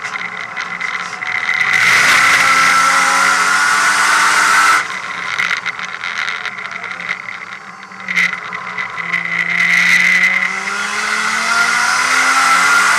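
Inside a Nissan race car on a track lap: the engine is at full throttle, then lifts off with the level dropping about five seconds in. A short sharp click comes near eight seconds. From about nine seconds the engine pulls hard again, its revs rising steadily, over wind and tyre noise.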